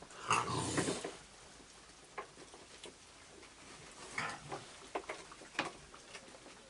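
Raccoons feeding together: a short, loud raccoon grunt or growl about half a second in, then scattered clicks and crunches as they eat.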